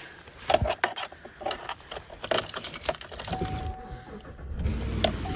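Car keys jangling and clicking as they are handled. About three seconds in, a steady electronic tone from the truck's dashboard starts, and near the end the engine starts and runs with a low rumble.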